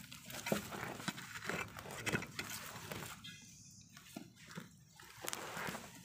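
Hands and a stick rustling and scraping through dry leaf litter, grass and soil: scattered short scuffs and crackles.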